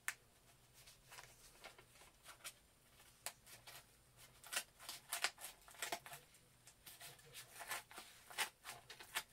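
Scissors snipping and a padded paper mailer crinkling as it is cut open and handled. The sound is a faint scatter of short clicks and rustles, busier in the second half.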